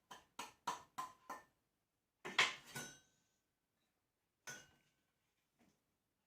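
A spoon clinking against a bowl as self-raising flour is spooned in: a run of quick light taps, then two louder clinks that ring briefly.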